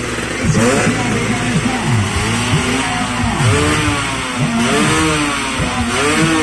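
Two-stroke drag Vespa engine revved hard again and again while held at the start line. Its pitch rises and falls in quick throttle blips.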